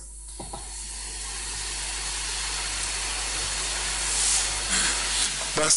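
A steady hiss of even noise with no words, slowly growing louder.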